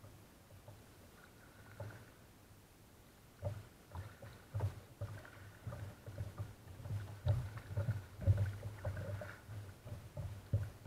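Sea kayak being paddled: water slapping and knocking against the hull, with paddle splashes. The knocks are irregular, sparse at first and busier from about three and a half seconds in.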